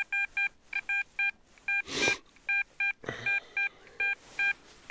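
XP Deus metal detector sounding a target signal: a quick run of short, same-pitched beeps, about three to four a second, as the coil passes over the spot. A brief swish cuts in about two seconds in.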